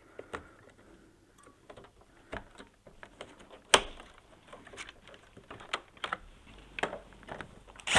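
Irregular plastic clicks and taps as a plasma filter assembly is pressed and clipped onto an air conditioner's indoor-unit heat-exchanger coil, with one louder click about four seconds in.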